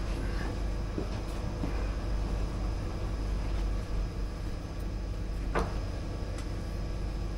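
Steady low hum of an amusement arcade's background, with a few faint taps and one sharper knock on the wooden counter about five and a half seconds in.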